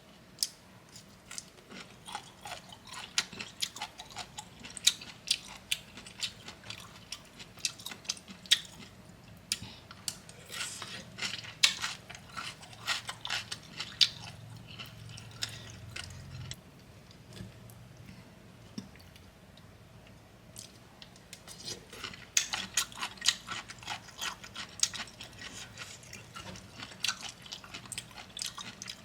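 Close-miked chewing of crunchy bamboo shoot and green papaya salad, a run of crisp crunches, thinning out for a few seconds past the middle, then picking up again.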